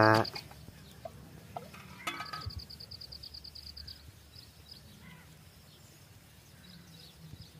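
Quiet outdoor ambience: a high, finely pulsed insect trill starts about two seconds in and lasts about two seconds, with a brief faint bird call and a low background hum.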